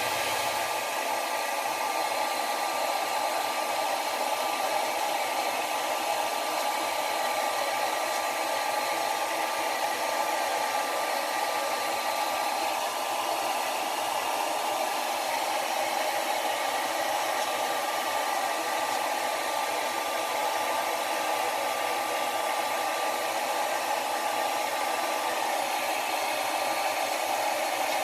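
Handheld blow dryer running steadily, a rushing blast of air with a faint constant motor whine, used to dry and style a freshly washed beard.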